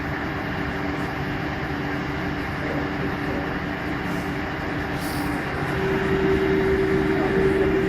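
Bendix 7147A washing machine spinning, its drum running with a steady rumble and hum. The machine is bumping up and down on an unbalanced load. The hum grows louder about six seconds in.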